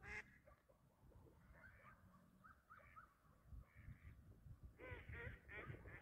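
Faint, distant honking calls of waterfowl: a few short rising notes, then a louder cluster of several calls about five seconds in.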